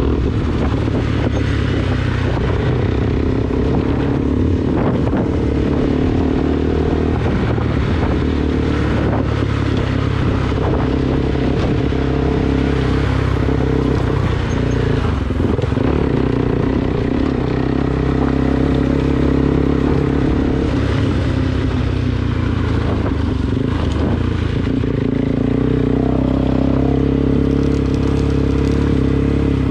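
Motorcycle engine running at fairly steady revs while riding a rough dirt track, with scattered rattles and knocks from the bike over the uneven ground.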